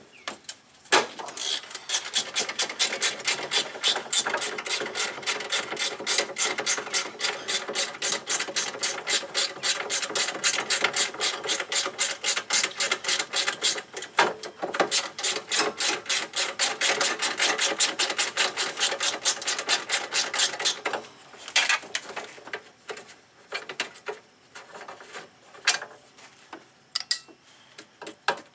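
Hand ratchet wrench clicking steadily and rapidly as it backs out an 8mm bracket bolt, with a short break partway through. The rapid clicking stops about two-thirds of the way in, followed by a few scattered clicks and knocks of the tool and bolt.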